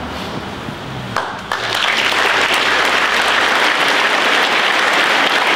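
A large hall audience of students applauding, breaking out suddenly about a second and a half in and continuing steadily as many hand claps; before it, only low room noise.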